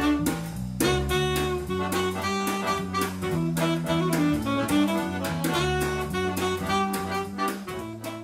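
Instrumental music with a steady beat, pitched melody and bass notes, and no singing: the instrumental passage between verses of a children's song.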